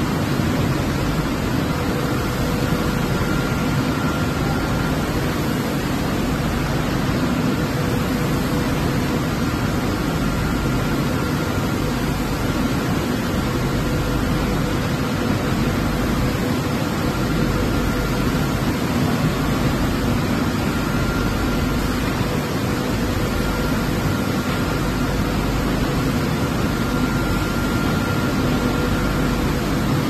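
Automatic plastic pallet and tray washing-and-drying machine running, its top-mounted blowers and pumps making a steady rushing noise with a faint steady hum.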